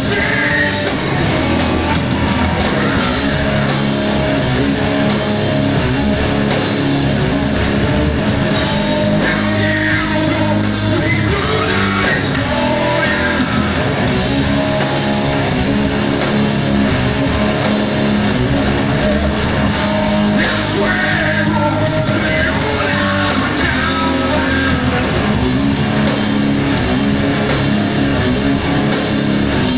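Live rock band playing: electric guitars and a drum kit, without a break.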